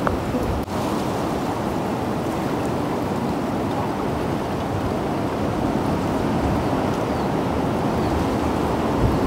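Sea surf washing steadily around coastal rocks.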